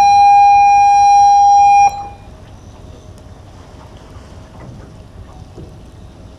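A single loud, steady horn blast about two seconds long that cuts off abruptly.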